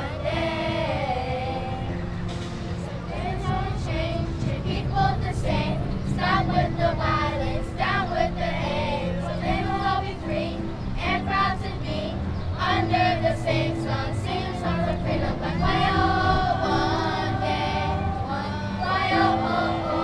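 Children's choir singing with electronic keyboard accompaniment.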